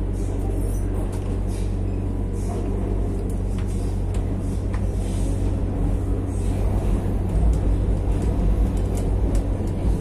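Madrid Metro Line 6 train 8468 running: a steady low rumble with scattered sharp clicks, getting louder over the last three seconds.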